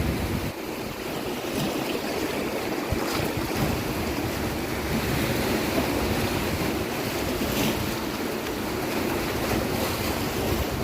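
Ocean waves breaking and washing on a beach, a continuous rushing surf that swells and ebbs slowly, with some wind noise on the microphone.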